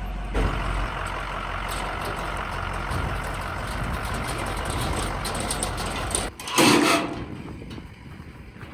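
Car running on the road, heard from inside the cabin as a steady road and engine rumble. About six seconds in it breaks off, a short loud rush of noise follows, then it goes quieter.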